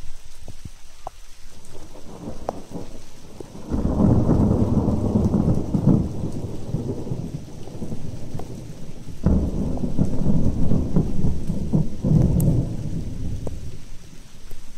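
Two long rolls of thunder during a severe thunderstorm. The first starts suddenly about four seconds in, the second about nine seconds in, and each rumbles on for about four seconds, with rain in the background.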